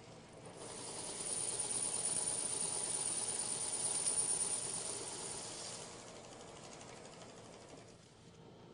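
Metal lathe taking a cut on the outer edge of a disc: the cutting hiss with a thin high whine rises about half a second in, holds for about five seconds, then fades as the cut ends.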